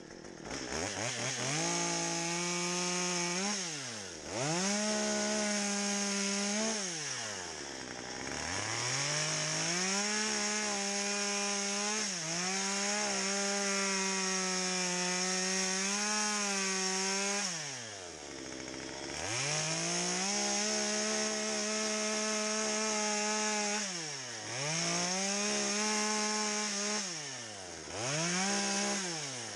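Gas chainsaw cutting into a knotty spruce log, revved hard through each cut and dropping back toward idle about five times between passes.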